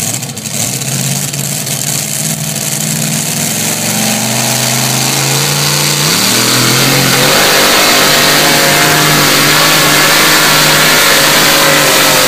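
Pickup truck engine in a truck pull, revving up under load with its pitch rising over the first few seconds. About halfway through the pitch steps sharply up, and the engine then runs flat out, loud and steady, dragging the weight-transfer sled down the track.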